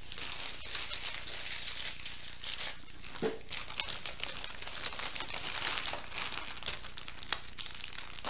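Clear plastic packaging crinkling and rustling as it is handled, with a few light clicks.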